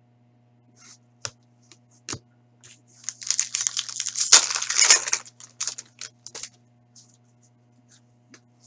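A hockey card pack's wrapper is torn open and crinkled for about two seconds in the middle, with light clicks and rustles of cards being handled before and after. A faint steady electrical hum lies underneath.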